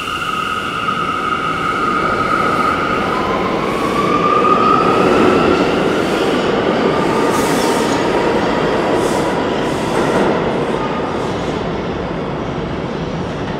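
R179 subway train pulling out of the station. Its motors whine, the pitch rising a few seconds in as the train picks up speed, over the rumble and clatter of the wheels on the rails as the cars pass. It is loudest in the middle and fades as the train goes off down the tunnel.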